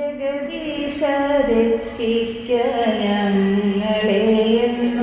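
A woman's voice singing a slow melody in long held notes, with musical backing.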